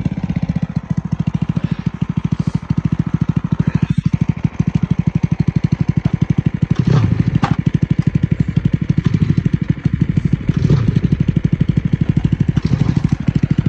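Snowmobile engine running near idle with a fast, even pulse, blipped up briefly three times, about halfway through and twice near the end.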